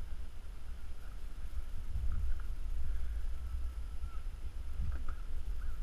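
Wind rumbling on the microphone over open water, with two soft knocks as a wire crab pot is handled against a wooden pier railing.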